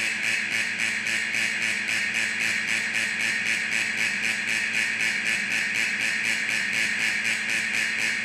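Factory alarm sounding continuously: a loud, harsh ring with a rapid, even pulse, strongest in the upper-middle pitch range.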